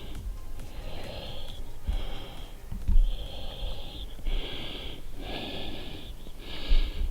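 A person breathing hard and wheezily, about six heavy breaths in a steady rhythm, while trudging through deep snow, with a few low thumps.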